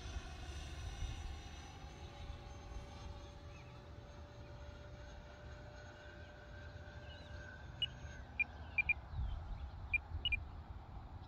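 Faint, steady whine of a distant E-flite F-15 Eagle RC jet's 64 mm electric ducted fan, with wind rumbling on the microphone. A few short high chirps come in near the end.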